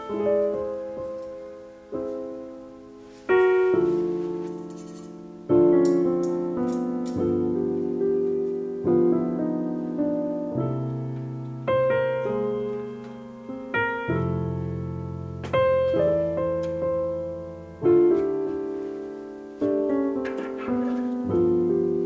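Slow background piano music: chords and single notes struck about every two seconds and left to ring out.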